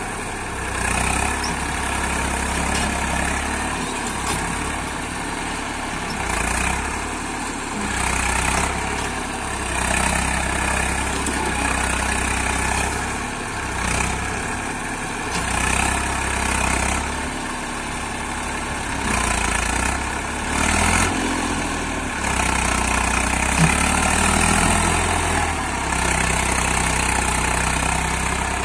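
Eicher 380 tractor's diesel engine working under load as it drags a cultivator through wet soil, the engine sound swelling and easing every few seconds.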